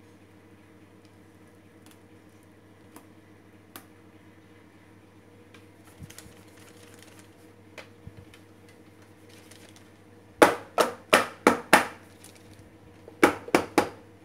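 Square metal baking tin full of cake batter rapped and shaken against the counter to knock air bubbles out: after about ten seconds, five sharp knocks in quick succession, a short pause, then three more. Before the knocks only a faint steady hum and light rustling.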